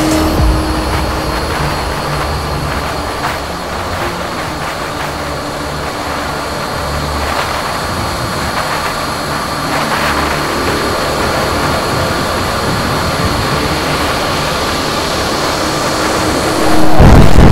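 Jet engine sound of fighter jets flying fast and low with afterburners lit, a steady rushing noise that suddenly gets much louder and fuller about a second before the end.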